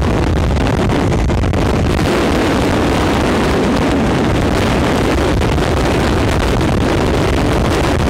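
Train running at speed over a bridge, heard from the train itself: a loud, steady rumble of wheels on rails, with wind buffeting the microphone.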